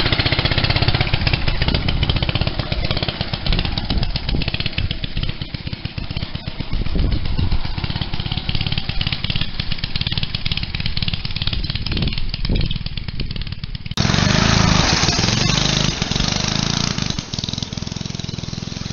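Small go-kart engine running as the kart is driven around, with a rapid, even firing beat. It grows fainter as the kart moves off, then is suddenly louder again about fourteen seconds in.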